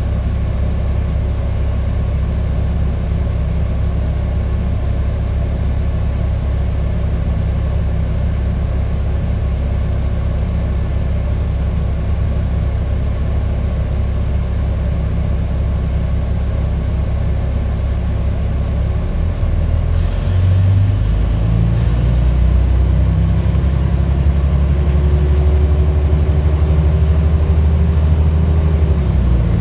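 Volvo B10TL double-decker bus heard from the upper deck: its diesel engine idles with a steady low rumble. About two-thirds of the way through the bus pulls away, and the engine note rises as it accelerates.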